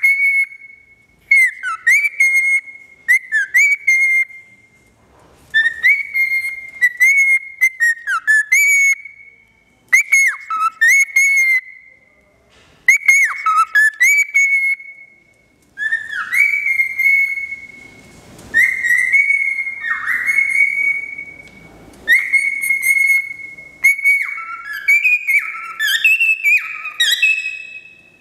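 Male cockatiel whistling its courtship song to its own reflection in a mirror. It sings repeated phrases of clear whistled notes with quick downward swoops, broken by short pauses, and near the end the notes climb higher.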